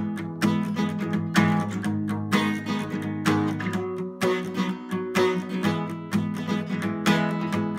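Acoustic guitar with a capo, strummed in a steady rhythm with a strong accent about once a second. It plays G and C chord shapes, then changes about four seconds in to Em, G/D and C.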